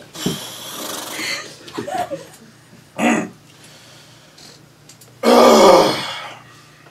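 A man noisily clearing his sinuses and throat: a long nasal snort at the start, a short sharp burst about three seconds in, and a loud, drawn-out throat-clearing hawk about five seconds in.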